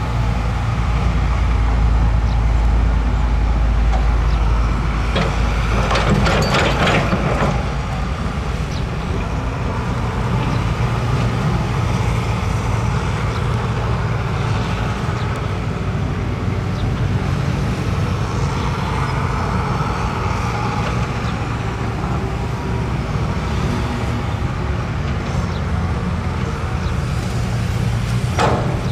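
Heavy diesel earthmoving machinery running, with a steady deep engine drone and brief louder bursts of noise about six seconds in and again near the end.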